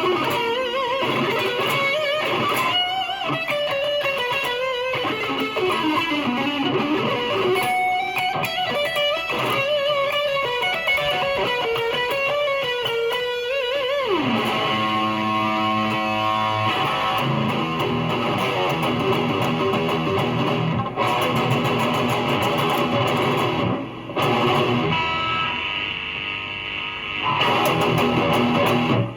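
Electric guitar played through a Fender Champion 20 amplifier. Single-note lead lines with bends give way, about halfway through, to a quick slide down in pitch, then ringing chords and strumming.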